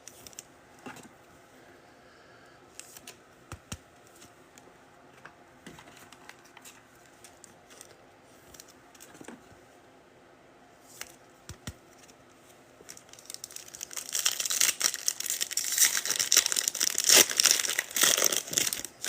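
Light scattered clicks and taps of trading cards being handled, then about two-thirds of the way through a loud stretch of crinkling and tearing as a foil card-pack wrapper is ripped open.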